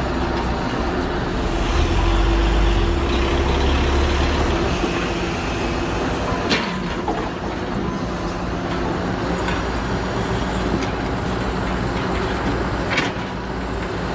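Heavy diesel vehicle or machine engine running steadily under load, with two sharp knocks, one about six and a half seconds in and one near the end.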